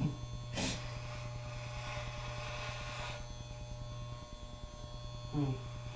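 Electric hair clippers running with a steady low buzz while shaving a head down to a buzz cut.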